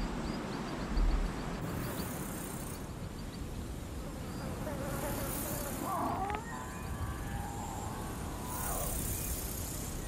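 Outdoor savanna ambience dominated by insects buzzing, with high hissing that swells and fades a few times, and a few brief chirps and wavering calls in the background.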